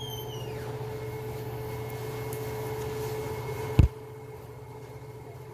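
A steady mechanical hum, broken by one loud sharp click or knock nearly four seconds in, after which the hum carries on more quietly.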